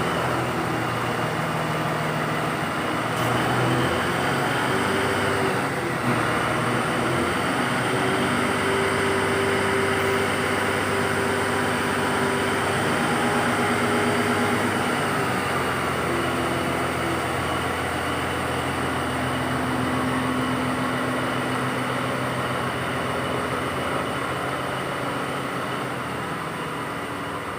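Diesel engine of an INKA CC300 diesel-hydraulic locomotive running, a steady heavy drone whose pitch shifts up and down a few times.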